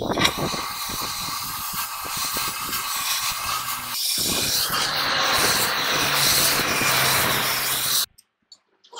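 Oxy-fuel torch flame hissing steadily as it heats the bore of a steel truck wheel hub. The sound cuts off suddenly about a second before the end.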